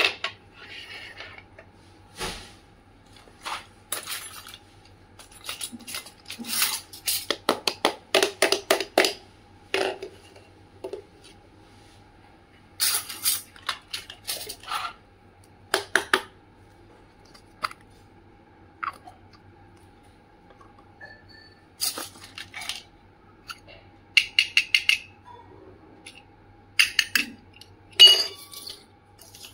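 Small plastic and metal toy kitchen pieces clicking, tapping and clinking as they are handled and set down on a hard tabletop, in irregular runs of quick clicks with pauses between. A faint steady hum runs underneath.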